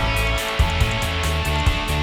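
Background music with guitars and a steady drum beat.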